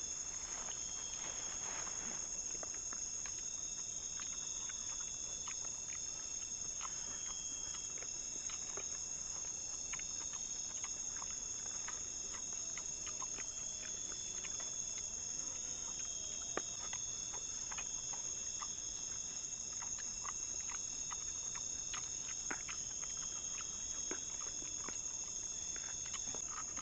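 Steady high-pitched insect chorus, with many scattered soft clicks and taps throughout.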